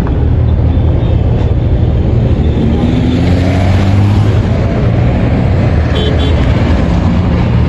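Car driving along a road: a loud, steady rumble of engine and road noise, with the engine note rising a few seconds in.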